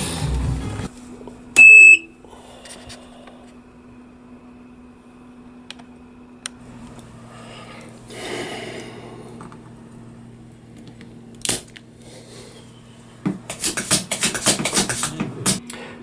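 A single short, loud, high electronic beep, then a faint steady electrical hum, then a quick run of clicks and scraping near the end, as a chip is worked off a circuit board.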